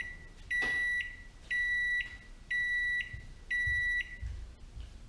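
Microwave oven's end-of-cycle beeper sounding a series of high electronic beeps, about half a second each, once a second, four in a row, then stopping, signalling the cooking time is up.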